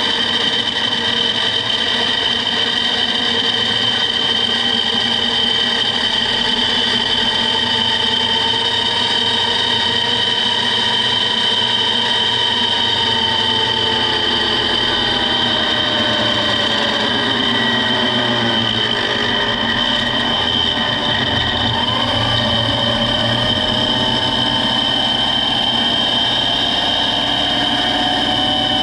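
A motor-driven 3D-printed PLA gear train spinning at high speed: a loud, steady whine with a high tone on top and fainter tones beneath that slowly rise and fall as the drive's power draw climbs.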